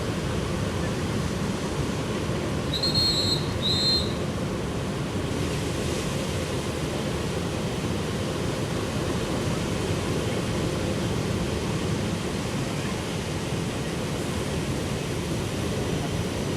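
Steady rush of ocean surf breaking on a beach. About three seconds in come two short, high whistle-like tones.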